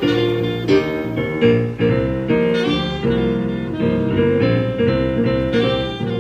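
Tenor saxophone playing a jazz melody over keyboard accompaniment, with a steady run of note changes.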